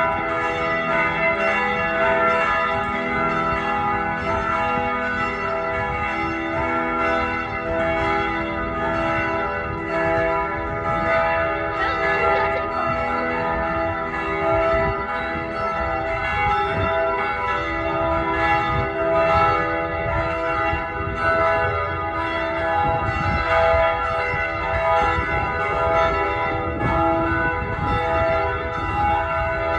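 A peal of church bells ringing continuously, with strokes following one another in quick succession and their tones ringing on and overlapping.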